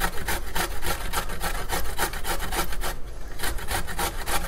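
Fresh peeled ginger root being grated on a metal box grater: rapid, even rasping strokes, with a short break about three seconds in.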